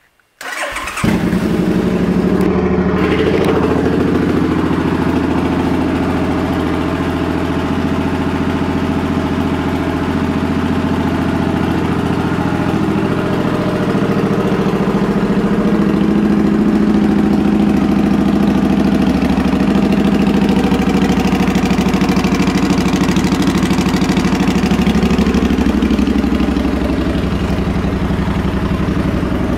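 Suzuki M50 Boulevard's 805 cc V-twin, fitted with aftermarket exhaust pipes, starting about half a second in and then idling steadily.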